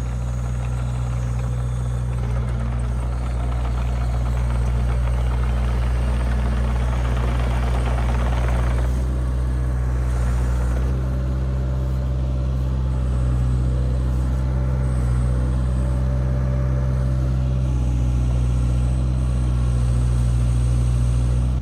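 Kubota mini excavator's diesel engine running steadily under the operator's hands. A rougher, rasping stretch sets in partway through and stops sharply about nine seconds in, and a faint steady whine rides over the engine later on.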